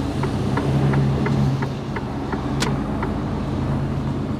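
Mercedes-Benz Actros truck's diesel engine running steadily as the truck creeps forward, heard from inside the cab, with the right indicator ticking about three times a second. One sharper click stands out about two and a half seconds in.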